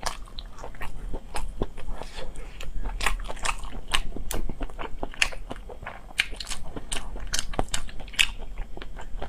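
Close-miked crunching and chewing of pan-fried fertilized chicken eggs (balut-style 活珠子), with irregular sharp crunches a few times a second.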